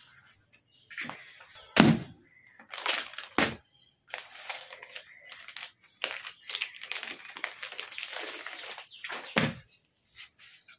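Clear plastic suit packaging crinkling and rustling as it is handled and opened, with three sharp knocks or snaps, the loudest about two seconds in.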